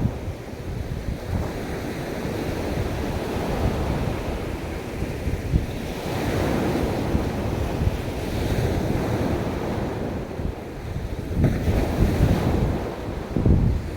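Sea waves washing onto a beach, with wind buffeting the microphone. The surf swells about six seconds in and again near the end.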